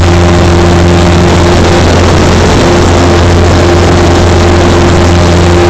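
Piper Cherokee's piston engine and propeller droning steadily, loud from inside the cockpit.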